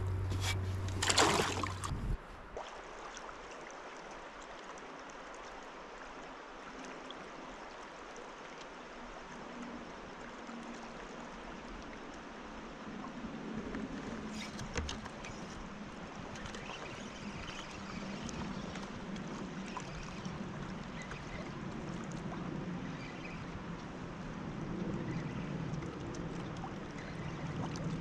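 Water lapping and trickling against a kayak's hull as it drifts on a river, with a couple of sharp knocks near the start.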